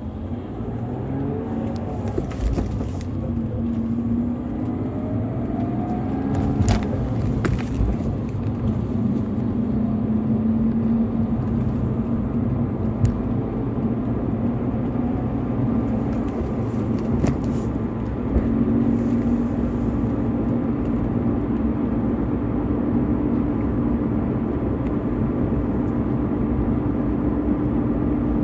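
BMW E46 320i's stock M52TU 2.0-litre inline-six running under load, its note climbing and falling in the first few seconds, then settling into a steadier drone that edges up in pitch over the second half. A few sharp knocks sound about a quarter of the way in and again past the middle.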